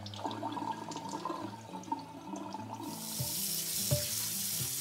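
Water running from a kitchen tap into a stainless steel sink and splashing over a whole raw chicken as it is rinsed. The flow turns louder and steadier about three seconds in. Background music plays underneath.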